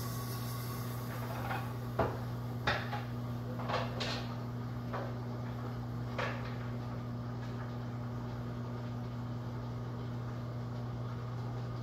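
Dishes and kitchen things knocking and clinking at a sink: about eight sharp knocks in the first six seconds or so, then they stop. A steady low hum runs underneath.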